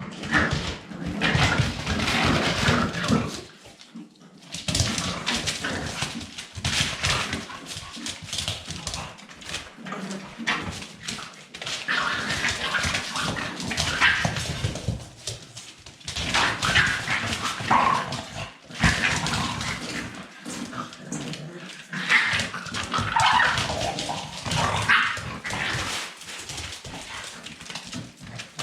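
Staffordshire bull terrier puppies yipping, whimpering and barking in frequent short, high-pitched bursts, with a brief lull about four seconds in.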